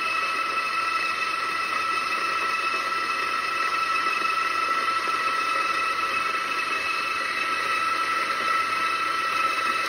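Compak K3 espresso grinder's motor and burrs grinding coffee beans into a portafilter: a steady whine with several fixed tones over a grinding hiss, which cuts off abruptly near the end. It is grinding a 17-gram dose at a much finer setting.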